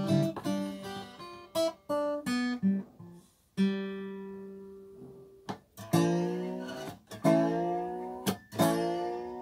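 Acoustic guitar played solo. Picked notes and short chords come first, then a single note is left to ring and fade, then three full strummed chords about a second and a half apart, each let ring before a short muted stroke.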